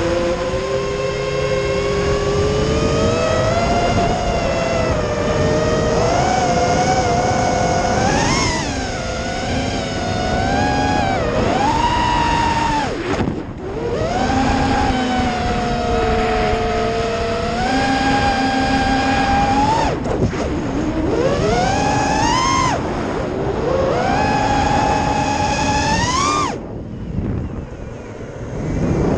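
FPV racing quadcopter's brushless motors and propellers whining, the pitch rising and falling with throttle changes. The whine drops away suddenly near the end for about two seconds, then comes back.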